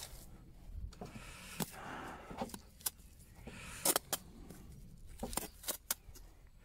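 Bricklaying trowel working mortar: scooping it from a plastic tub and spreading it into the joint of a stone wall, soft scrapes of mortar with a scatter of sharp clicks and taps of the blade.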